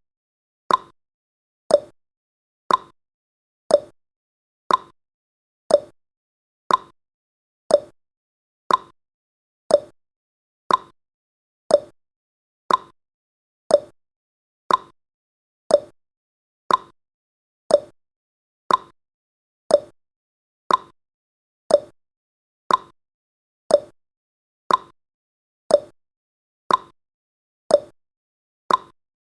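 Countdown timer's tick sound effect: short, sharp clock-like ticks, one a second, each dying away quickly.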